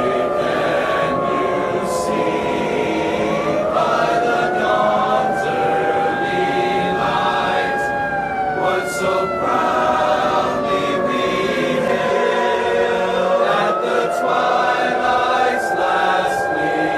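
A wailing two-tone siren sound effect whose pitch climbs quickly, holds, then slowly falls, climbing again about three seconds in and about thirteen seconds in, over choral singing.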